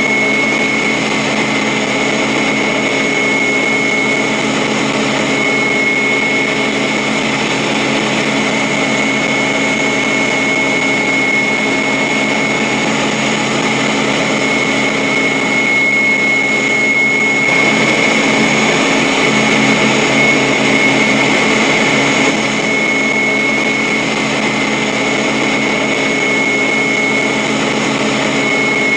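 A loud, steady mechanical drone with a constant high-pitched whine, with no let-up or change in pitch, as from an engine or motor running without pause.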